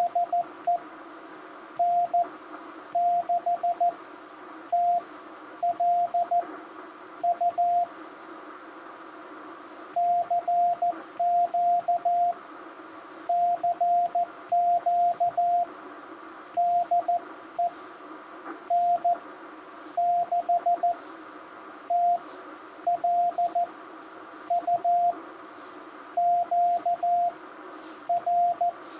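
Morse code (CW) sidetone from a Ten-Tec Argonaut V QRP transceiver, a single steady beep keyed on and off in dots and dashes grouped into characters, as the operator sends a call on the 40-meter band. Receiver band hiss comes through the speaker between the characters.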